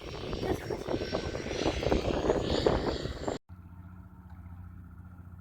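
Light aircraft's engine and propeller during a crosswind landing, mixed with wind buffeting and knocks, with a faint high engine tone slowly rising. It cuts off suddenly about three and a half seconds in to a quieter, steady low engine hum.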